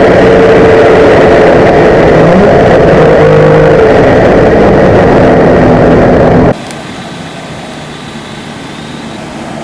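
Race car engine running hard, heard from inside the stripped, roll-caged cabin of a Volvo 122 Amazon wagon: loud and steady with engine and wind noise, the engine note shifting pitch a few times. About six and a half seconds in it cuts abruptly to a much quieter, steady sound of a car running at a distance.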